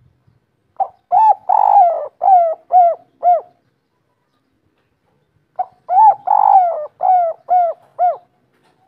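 Spotted dove cooing twice. Each call is a short opening note, a longer rolling coo, then three short clipped 'kuk' notes, the three-note 'kuk 3' song type.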